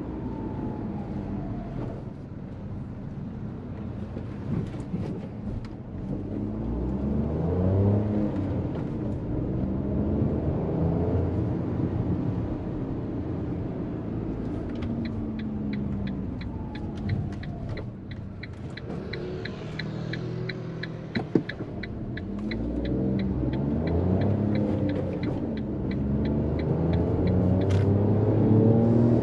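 Fiat Panda 1.0 naturally aspirated three-cylinder petrol engine accelerating and easing off repeatedly, its pitch rising and falling with each gear. Through the middle and latter part there is a steady light ticking, about three a second, and one sharp click partway through.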